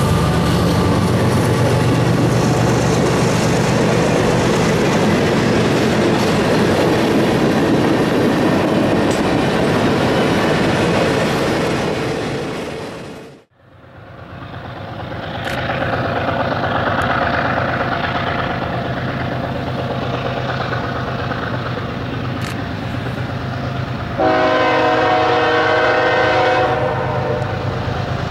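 Tank cars of a passing freight train rolling by, with steady wheel-on-rail clatter. After a fade, an approaching locomotive's engine grows louder, and near the end its air horn sounds one long, multi-note blast.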